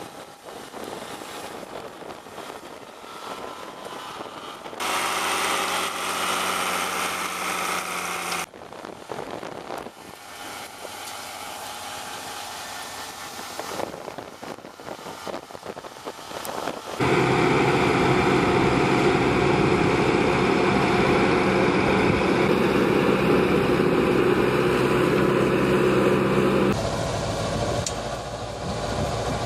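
Tractor engines running steadily as they pull soil bed-forming implements through a field, heard in a series of clips that change abruptly several times. A little past halfway a louder, steady engine sound begins and holds until shortly before the end.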